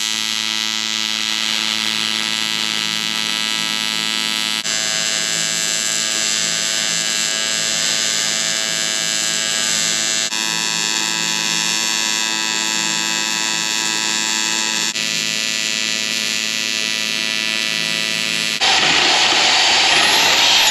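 AC TIG welding arc on aluminium: a steady, buzzing hum that shifts abruptly in tone a few times. Near the end it turns louder and hissier.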